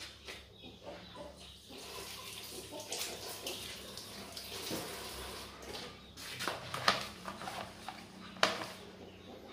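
Water splashing and running, with a few sharp clatters near the end.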